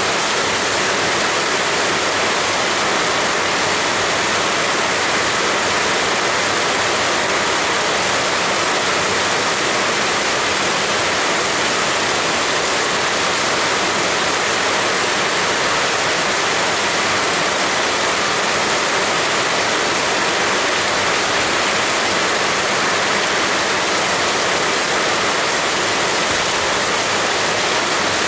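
Heavy rain falling steadily, a dense even hiss with no distinct drops or gusts standing out.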